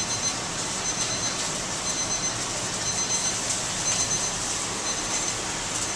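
Steady commercial-kitchen noise: the hiss and rumble of ventilation and frying on the line, with a faint high whine that comes and goes.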